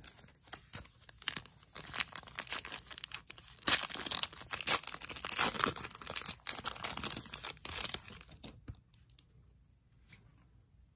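Foil trading-card pack wrapper being torn open and crinkled by hand, a dense crackling rustle. It builds about two seconds in and stops a couple of seconds before the end.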